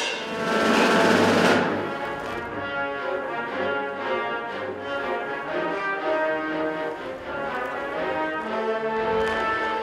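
Orchestral music from a stage ballet score: a loud crash at the very start that rings for about a second and a half, then sustained orchestral chords.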